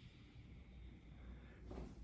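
Near silence: room tone with a steady low hum and a faint, brief soft noise near the end.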